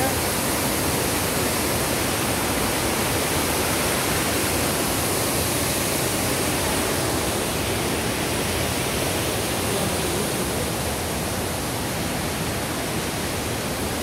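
Large waterfall rushing: a steady, dense roar of falling water and spray.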